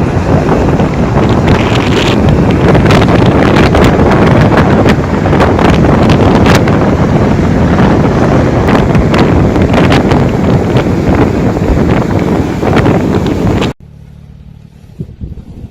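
Loud wind rushing and buffeting the microphone with crackling gusts in a snowstorm. It cuts off abruptly near the end to a much quieter low hum.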